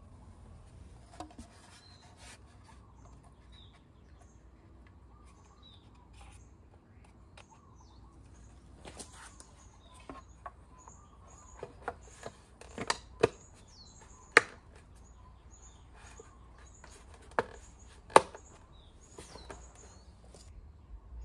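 Scooter's plastic handlebar cover being worked down over the handlebars: rubbing and handling noises, then a handful of sharp plastic clicks and knocks in the second half as it is pressed into place. Small birds chirp faintly in the background.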